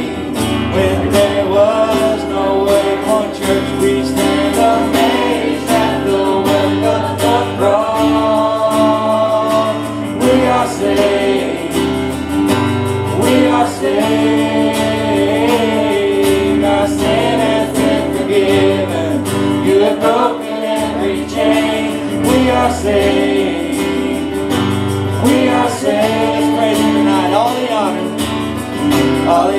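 A live worship band playing a song: singers with electric guitar and keyboard over a steady beat.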